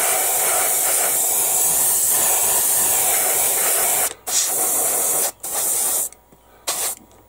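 Airbrush spraying paint: a steady hiss for about four seconds, then three shorter bursts as the trigger is let off and pressed again.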